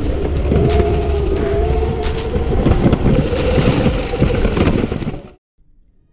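Razor MX650 pit bike converted to a 72 V, 3000 W electric motor, ridden fast: a wavering motor and drivetrain whine over heavy rushing wind noise, with rattling knocks as the bike runs over rough ground. It cuts off suddenly about five seconds in.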